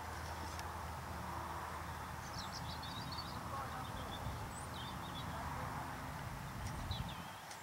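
Open-air field ambience with a steady low rumble, and a few short, high bird chirps about two and a half, four and seven seconds in.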